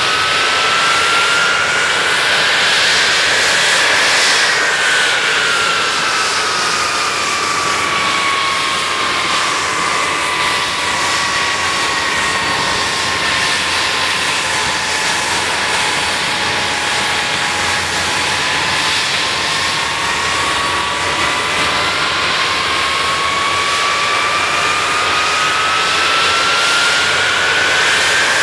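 Handley Page Victor K.2's four Rolls-Royce Conway jet engines running loud with a steady roar and a high whine. The whine rises over the first few seconds, sinks slowly to its lowest about halfway through, then climbs again toward the end as engine speed changes.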